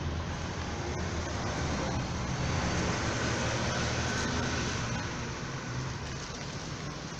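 Road traffic: a car passing close by, its engine and tyre noise swelling from about two seconds in and easing off toward the end.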